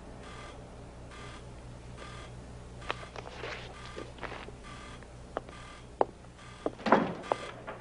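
A short electronic beep repeating evenly, a little under once a second. Over it come scattered knocks and footsteps as a man gets up from a metal chair and walks off, with the loudest clatter about seven seconds in.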